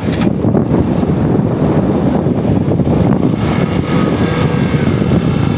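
Steady wind rush on the microphone with tyre and road rumble from a motorbike coasting downhill in neutral, engine off.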